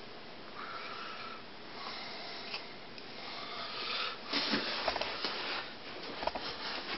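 Faint room tone, then from about four seconds in a scatter of clicks and rustling as a person moves up close to the microphone.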